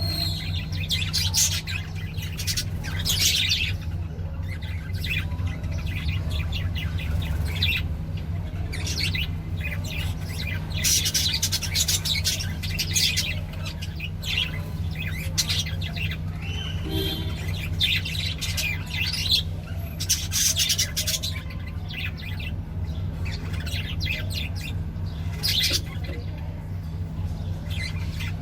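Small birds chirping and squawking in quick, repeated bursts of calls, over a steady low hum.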